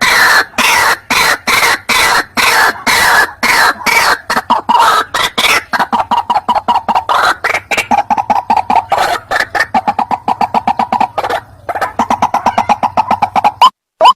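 White-breasted waterhen calling: a loud, rapid series of short harsh notes, several a second, with a brief break about eleven seconds in. This is the kind of recorded call played as a lure to draw waterhens in.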